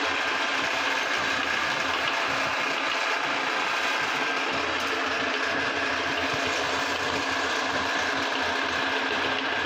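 Electric meat grinder running steadily with a constant motor hum, grinding candy-coated chocolate buttons.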